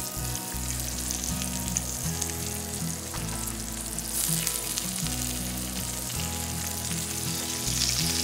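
Mayan cichlid fillets frying in butter and olive oil in a cast-iron skillet: a steady crackling sizzle that grows louder about four seconds in and again near the end as more fillets go into the hot fat.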